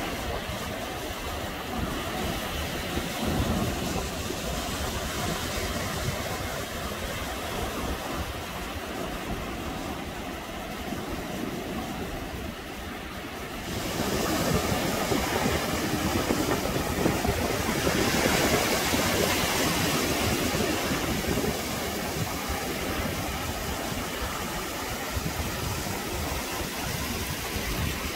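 Wind buffeting the microphone over small waves breaking and washing on a beach. It turns louder suddenly about halfway through, and a surge of surf follows a few seconds later.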